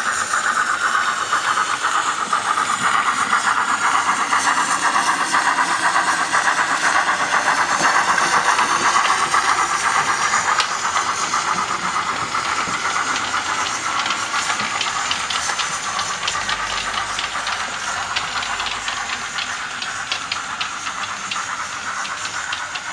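Model steam locomotive and coaches running on a model railway: a steady hiss with wheels clicking over the rail joints, the clicking coming in about halfway through.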